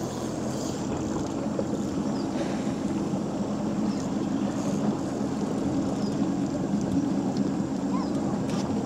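Small fishing boat's outboard motor running steadily with a low hum, over the wash of river water.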